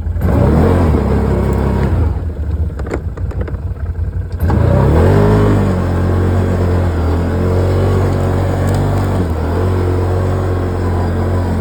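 Vehicle engine revving hard, climbing twice (at the start and again about four and a half seconds in), then held at high revs while trying to push through deep snow.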